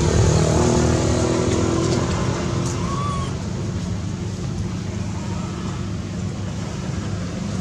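A motor vehicle engine running steadily with a low rumble; its pitch is most distinct in the first couple of seconds and then fades into a duller rumble. A brief short chirp sounds about three seconds in.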